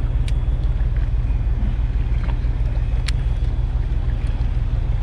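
Fishing boat's engine running with a steady low drone, with wind on the microphone and a couple of sharp clicks, one near the start and one about three seconds in.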